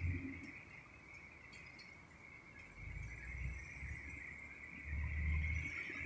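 Insects droning as a steady high hiss, with a low rumble that swells about halfway through and again near the end.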